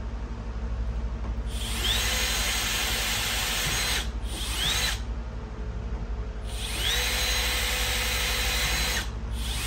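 Power drill spinning up with a rising whine and drilling into a saddlebag lid through a template, in two long runs with a short blip between them and another start near the end.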